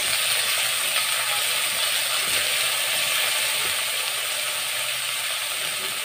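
Hot oil in a wok sizzling and crackling as potato and kohlrabi chunks fry with sliced onion. The sizzle jumps up right at the start as the pieces go in, then eases slowly into a steady hiss.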